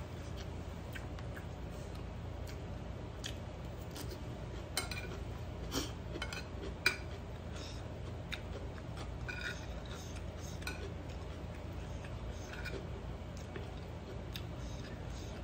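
Metal spoon clinking and scraping on a ceramic plate in scattered light taps, the sharpest few about five to seven seconds in, over a steady low hum.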